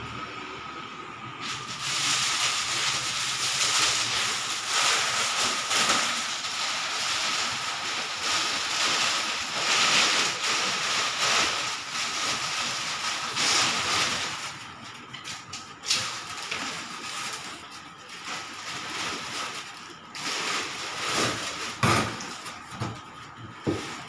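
Plastic wrapping sheet crinkling and rustling as it is pulled off a new refrigerator and bundled up, heaviest in the first half, with a few sharp knocks near the end.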